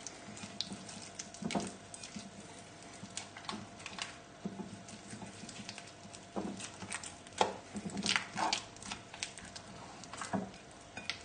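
Hands rubbing a mustard marinade into scored raw chicken in a bowl: quiet, irregular wet squelches and soft taps.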